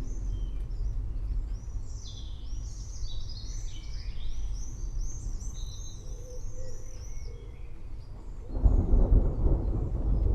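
Several birds chirping in quick, repeated high notes over a low rumble of distant thunder. About eight and a half seconds in, a louder roll of thunder sets in.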